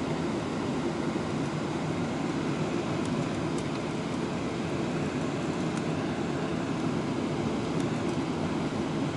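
Jet airliner cabin noise during descent: the steady, even sound of the engines and the airflow over the fuselage, mostly low-pitched.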